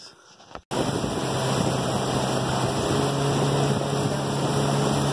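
Small boat's outboard motor running steadily under way, a steady low engine hum over a rush of wind and water noise; it starts suddenly just under a second in.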